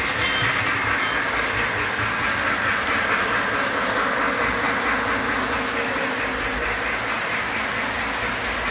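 Model electric trains running on three-rail track: a steady whir and rumble of wheels and motors.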